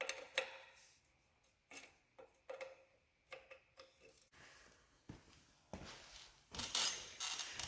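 Scattered light metallic clicks and clinks of hand tools and parts being handled during rear-axle brake line work, then a louder scraping, rustling noise building up near the end.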